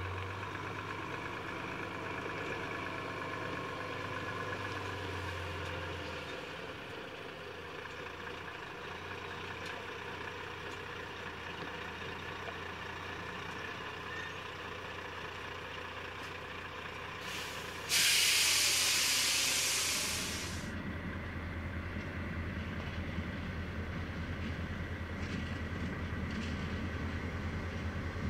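A fuel tanker truck's diesel engine runs at idle, and about 18 seconds in a loud air-brake hiss bursts out and fades over about two seconds. After that comes a low, pulsing throb of diesel locomotives rolling slowly into a siding.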